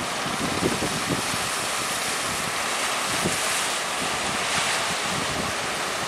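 Strong wind buffeting the microphone in uneven low gusts over a steady rush of sea water.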